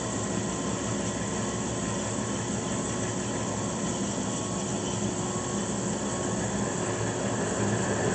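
DoAll 36-inch vertical band saw running without a blade in its low range at the lowest speed: a steady motor and drive hum with the band wheels turning slowly.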